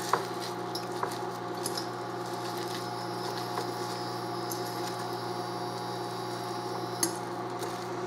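A hand squishing and kneading a wet salmon and crushed-cracker mixture in a glass bowl, with a soft patter and a few light clicks. A steady hum runs underneath.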